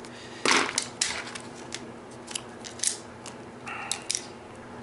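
A zip tie snipped through with a cutter, a sharp snap about half a second in, followed by scattered clicks and rattles as the plastic fender pieces are handled, with a short squeak near the end.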